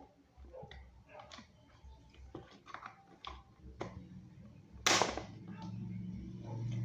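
Plastic parts of an electric fan being handled while it is taken apart, with scattered clicks and knocks and one louder sharp knock about five seconds in. A low steady hum comes in about four seconds in.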